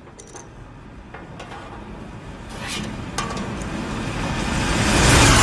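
Animated-film sound effects of machinery: a quiet mechanical ambience with a few scattered small clicks, then a noisy rumbling swell that rises steadily and grows loud near the end.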